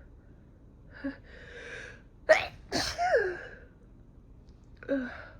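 A woman sneezing twice in quick succession about two seconds in, after a sharp gasp and a drawn-out in-breath, then a short catch of breath near the end. The sneezes are brought on by chhinkni, a Nepali herbal sneezing snuff.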